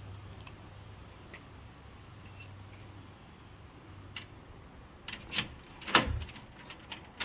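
A faint steady hum, then from about five seconds in a run of sharp metallic clicks and clacks as a newly installed door lock and latch are worked and tested, the loudest about six seconds in.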